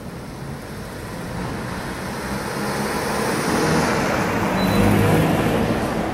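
A motor vehicle's engine passing close by in street traffic, swelling to its loudest about five seconds in and then fading.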